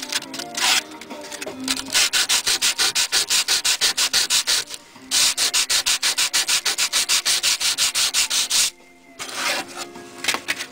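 Abrasive paper rubbed back and forth over the steel of a broken hacksaw blade, cleaning paint off its second side. A few uneven strokes, then two long runs of fast, even strokes, about seven a second, with a short break between them.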